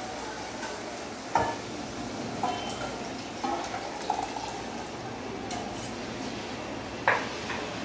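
Steel kitchenware clinking and scraping: cooked dal scraped out of a steel bowl into a steel pot with a knife, a few light clinks spread out, then a louder metal clank near the end. A low steady sizzle of the tempering in the pot runs underneath.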